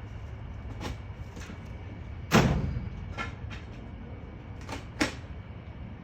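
Demolition debris thrown into a dumpster: a series of crashes and knocks, the loudest about two seconds in with a short ringing tail, and another sharp crash about five seconds in.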